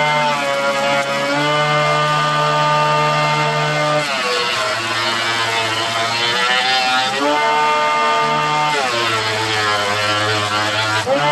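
Craftsman benchtop jointer's motor running with a high, steady whine; about four seconds in and again near the end its pitch sags and a rough hiss of the cutterhead planing curly maple joins it, as the board is pushed across the knives under load, and the pitch climbs back between passes.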